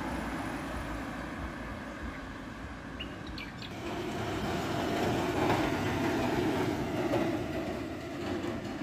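Road traffic passing, then a heavy diesel cargo truck driving past close by, its engine and tyre noise swelling about four seconds in and easing off as it pulls away.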